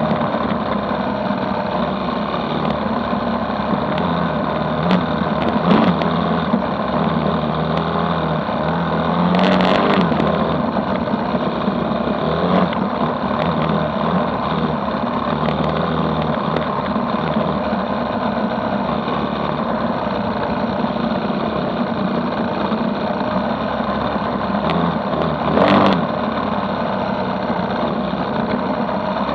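Dirt bike engine running under way on a dirt track, its pitch rising and falling with the throttle, under a steady rush of wind and road noise. There are two brief louder rushes, about ten seconds in and again near the end.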